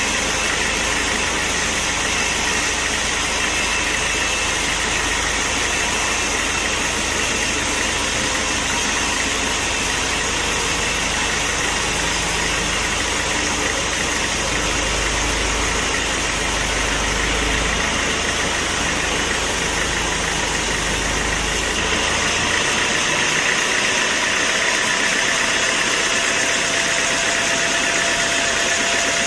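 Sawmill machinery running with a steady mechanical drone and hum; about three quarters of the way through the low rumble drops away and a steady tone comes in.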